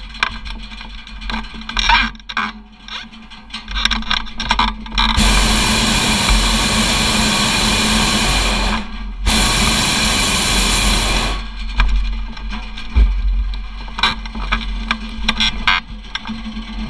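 Hot-air balloon propane burner firing: a loud, steady roar of about three and a half seconds, a short break, then a second burn of about two seconds. Before and after, scattered clicks and knocks over a low rumble.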